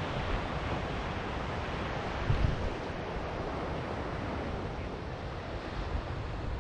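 Ocean surf washing steadily onto a beach, with wind buffeting the microphone and a stronger gust about two and a half seconds in.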